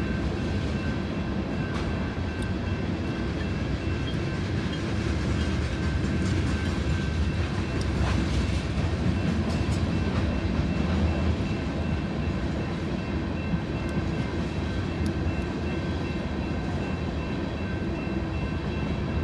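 Freight train of tank cars rolling past: a steady low rumble of wheels on rail, with a thin steady high tone over it.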